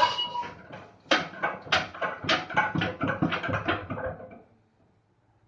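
Tubular diesel pile hammer's 2,500 kg steel ram knocking against the hammer in a quickening series of about a dozen metallic clanks, closer and closer together like a bouncing weight, then dying out about four seconds in as it comes to rest. Before that, the ringing of the previous heavy blow fades out.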